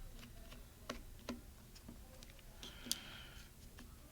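Faint, scattered clicks and ticks of small screws and a small screwdriver being handled during laptop disassembly, with a brighter tap near three seconds in.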